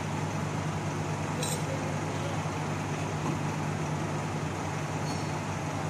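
Diesel bus engine running with a steady low hum as a double-decker coach rolls slowly forward.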